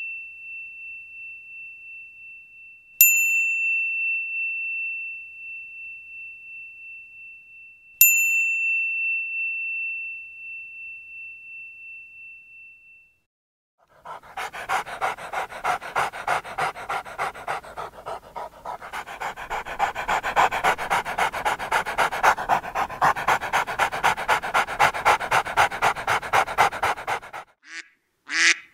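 A bell rings with a single clear tone, is struck twice more, and fades after each strike. After a brief silence a dog pants quickly and steadily, about four breaths a second. A duck quack begins right at the end.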